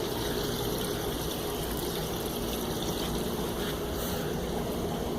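Steady trickling and running water from aquarium filtration and tanks, with a low electrical hum under it.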